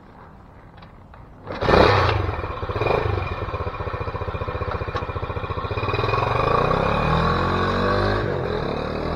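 Small single-cylinder four-stroke motorcycle engine on a Honda Trail 110 (CT110) starts about a second and a half in, revs twice and idles briefly with a pulsing beat. It then pulls away, the engine pitch rising as the bike accelerates.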